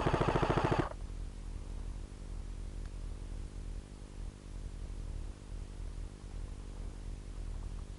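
A short burst of full-auto fire from an airsoft electric rifle, a rapid even clatter of shots lasting under a second. After it there is only a steady hiss and low hum.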